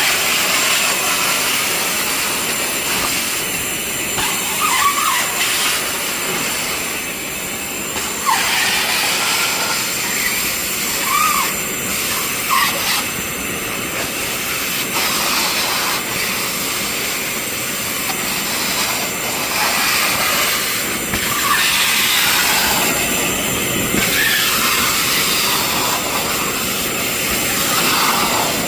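Industrial coolant sludge vacuum cleaner running steadily, its wide floor nozzle sucking water off the floor with a constant hissing rush. A few brief squeaks cut through it.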